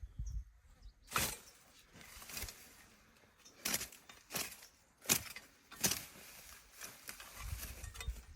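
Foice (brush hook) being swung through weeds and scrub, a string of sharp swishing, chopping strokes about one a second, a few of them louder than the rest.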